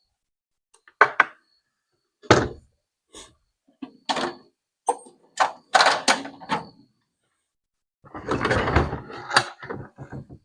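Hard objects being handled on a workbench: a string of separate knocks and clunks, then a longer rattling clatter near the end.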